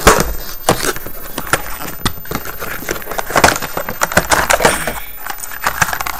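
Hard drive retail packaging being handled and opened by hand: crinkling and rustling with many quick, sharp clicks and taps.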